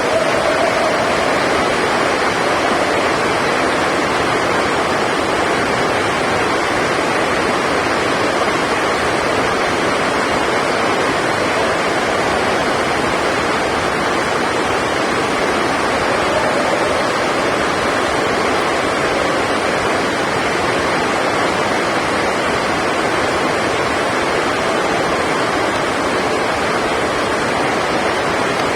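Heavy rain making a steady, loud rushing noise that drowns out the hall's other sounds.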